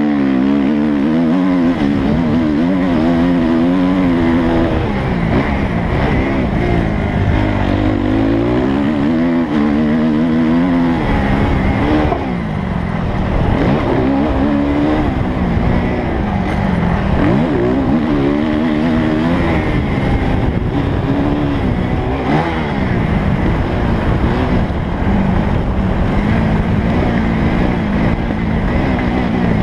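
Suzuki motocross bike's engine, heard from the rider's helmet, revving up and down over and over as it is ridden hard along a dirt track.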